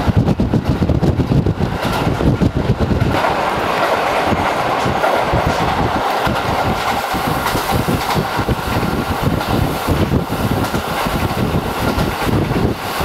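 A train of KiHa 40 and KiHa 54 diesel railcars running on the line. A heavy low rumble for about the first three seconds gives way to a steadier rushing noise with a faint high tone.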